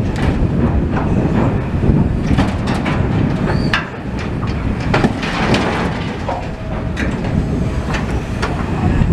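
Demolition machinery clearing rubble: a steady low rumble with repeated clanks and knocks and a couple of brief metallic squeals.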